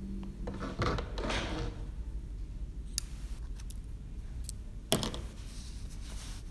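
Close handling noise: rustling against the microphone about a second in, then two sharp small clicks about two seconds apart.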